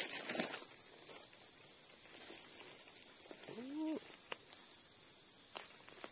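Insects, crickets or similar, trilling on one steady high-pitched tone. Near the middle comes a short rising-then-falling call, and there are a few faint ticks.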